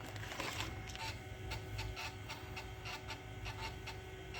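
Macintosh SE booting from a system disk: its disk drive clicks about three to four times a second as it reads. Under the clicks runs a steady hum of the cooling fan and the spinning hard drive.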